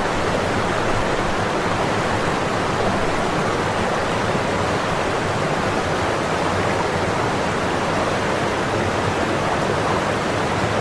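Whitewater rapids of the River Nile rushing in a steady, unbroken roar of water.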